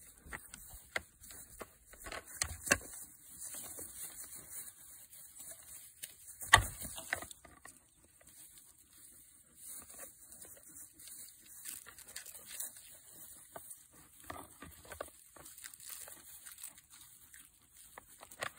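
Two Nigerian Dwarf bucks fighting: hooves scuffling and trampling dry grass, with scattered knocks as heads and horns meet, and one sharp, much louder clash about six and a half seconds in.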